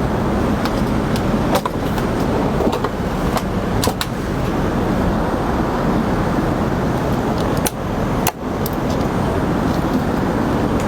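Steady cabin noise of an Airbus A380 in flight, a loud even rumble of air and engines, with scattered light clicks and a brief dip in level twice near the middle.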